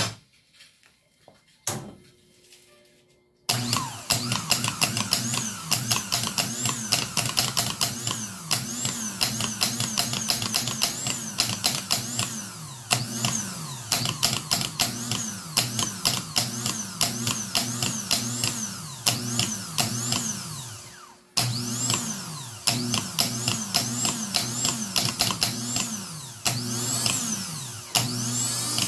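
Rebuilt Mazda 3 starter motor being bench-tested on battery leads: it spins up with a click and a whine that rises and falls over and over as it is run in short pulses. It winds down and stops a little before two-thirds of the way through, then starts again abruptly.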